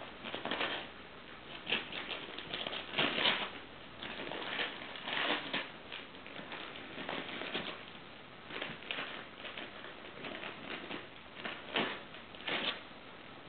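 Wrapping paper crinkling and tearing in irregular bursts as a dog bites and rips a present open.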